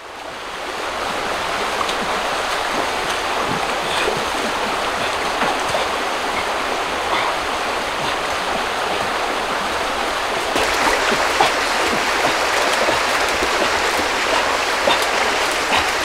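Shallow stream flowing over stones: a steady rushing of water that fades in at the start and turns brighter about ten seconds in.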